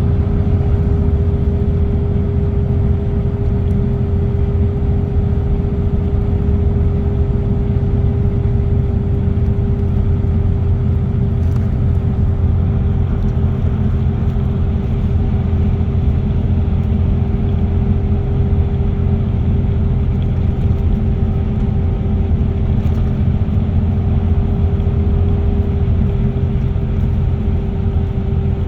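Car travelling steadily at expressway speed: a constant low road and engine rumble with a steady hum running throughout.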